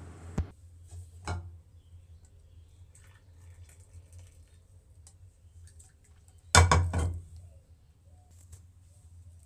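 Kitchen utensils clattering: a sharp click, a short metal clatter about a second in, and a louder clatter lasting about half a second two-thirds of the way through, over a low steady hum.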